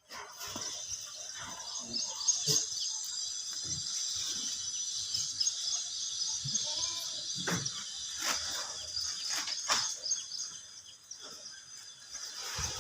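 Yemeni goat kids bleating now and then, with a few knocks and shuffles, over a steady high-pitched chirring background.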